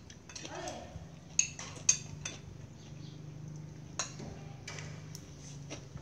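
Metal spoon and fork clinking and scraping against a ceramic plate while eating rice, a handful of short sharp clinks a second or two apart.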